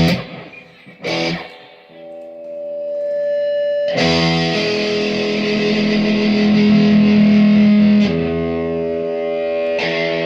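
Guitar played through distortion: two short, sharply struck chords, then held chords that swell in and ring out, changing about every four seconds.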